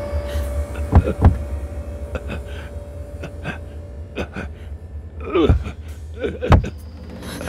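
A man trapped underground thumps twice in quick succession on the lid above him. Later he lets out straining gasps and groans, with another thump near the end. Dramatic music fades out at the start.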